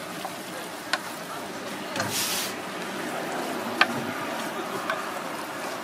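Wooden chopsticks tossing noodles in a stainless steel bowl, with a few sharp taps of the chopsticks on the metal, the loudest near four seconds in. A brief hiss comes about two seconds in.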